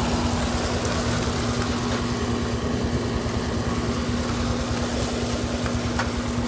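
Steady machine running with a constant hum and a low, pulsing rumble: a small utility-vehicle engine idling in neutral together with a 5,000 BTU window air conditioner running.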